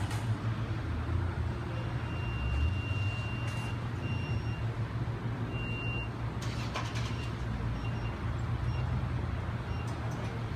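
Steady low hum of vehicle engines running, with a faint high-pitched beep sounding on and off.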